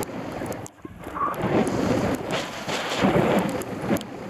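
Wind buffeting a bike-mounted camera's microphone while riding, a loud rumbling rush that drops away briefly a little under a second in.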